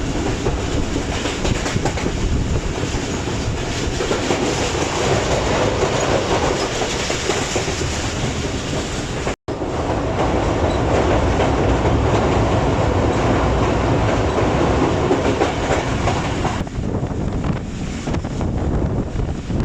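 Passenger train running at speed, heard from aboard the coach: a steady rumble of wheels on the rails with clickety-clack of the rail joints. It breaks off for an instant about nine seconds in.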